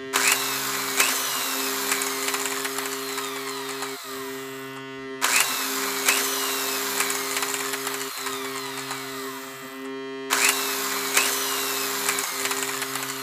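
Power-tool sound effect: a steady motor hum with crackle and a falling whine about once a second. It plays three times over, with brief gaps about five and ten seconds in.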